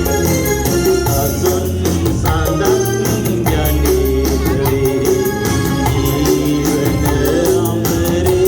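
Loud music with a steady beat, heavy bass and a keyboard melody, with some singing.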